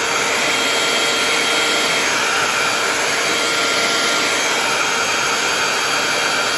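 Small handheld electric air blower running steadily: a rush of air with a faint steady motor whine, blowing wet acrylic paint outward across a tile.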